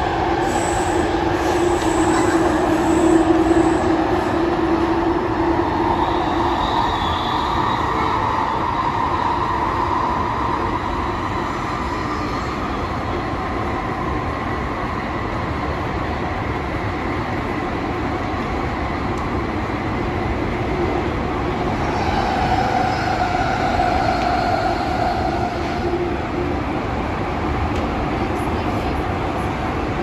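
London Underground Jubilee line 1996-stock train running through a tunnel, heard from inside the carriage: a steady rumble of wheels and motors with drifting squealing tones from the wheels, strongest in the first few seconds and again about three-quarters of the way through.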